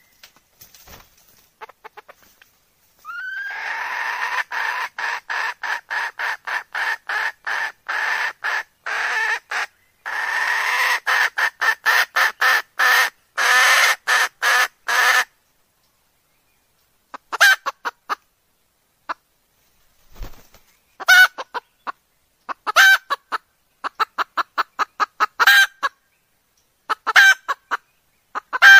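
A hen clucking: a long run of short clucks, about three a second, then after a pause several shorter bouts, each opening with a louder cluck and trailing off into softer ones.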